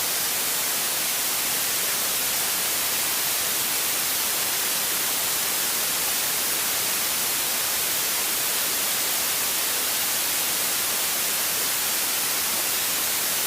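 Steady static hiss, even and unchanging, like an open intercom or headset audio feed, with no engine tone or other sound standing out.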